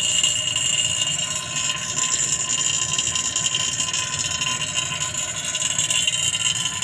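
Refrigerant vacuum pump running steadily with a high whine, evacuating an air conditioner's refrigerant lines through a manifold gauge set to draw out moisture.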